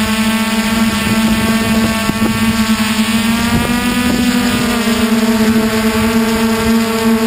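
DJI Flame Wheel 450 quadcopter's brushless motors and propellers in flight, heard loud and close from the camera mounted on the frame: a steady multi-tone hum, one of its tones shifting slightly in pitch about halfway through as the throttle changes.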